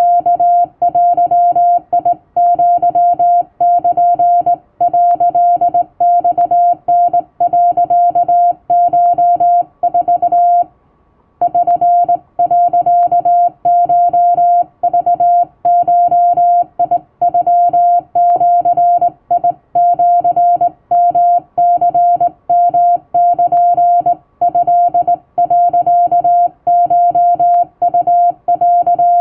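Hand-keyed Japanese (wabun) Morse code: a single steady tone switched on and off in quick dots and dashes, with one short break of under a second about eleven seconds in.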